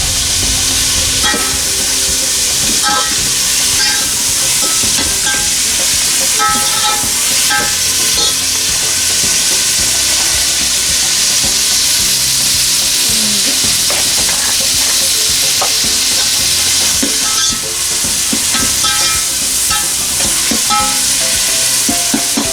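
Onions and tomatoes frying in oil in a cooking pot, a steady sizzle with short scrapes and clinks scattered through it.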